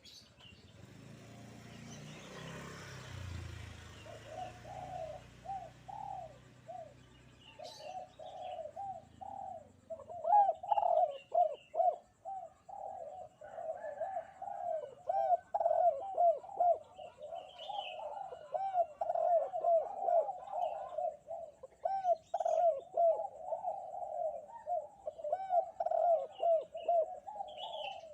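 Spotted dove (derkuku) cooing over and over in a fast run of low, rounded coos that starts a few seconds in and grows louder, with faint chirps of small birds above it. A low rumble comes first, before the cooing begins.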